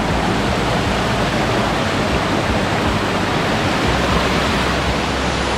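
Waterfall: water falling in a loud, steady, even rush.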